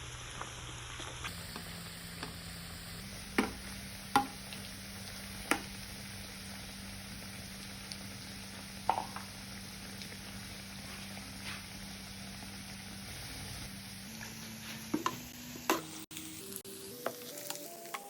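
Food sizzling as it fries in a pan: a steady hiss with a few sharp clicks of a utensil against the pan.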